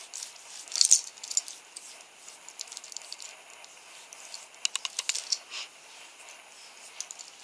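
Scattered light clicks and taps, clustered about a second in and again around five seconds, from fingertips and nails patting cream blush onto the cheek.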